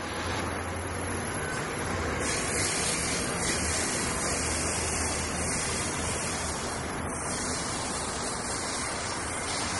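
SEPTA Silverliner IV electric multiple-unit train passing: a steady rushing noise from wheels on rail, with a faint low hum underneath.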